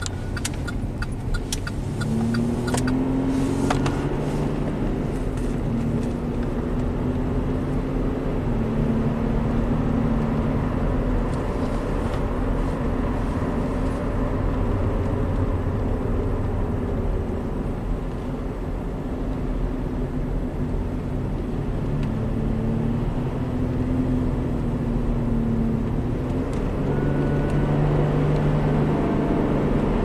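2009 Chevy Traverse's 3.6-litre direct-injection V6 running under load on the road, heard from inside the cabin, its pitch slowly rising and falling with engine speed. A quick run of light ticks comes in the first few seconds. The engine has been setting misfire codes, and its bank one intake cam timing is wandering.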